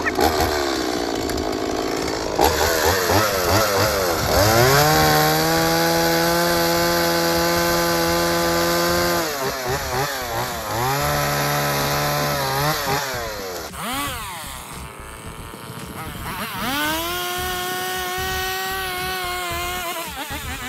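Two-stroke chainsaw cutting a notch into a wooden pole: it revs up to full throttle and holds a steady high pitch while cutting, three times, dropping back toward idle between the cuts.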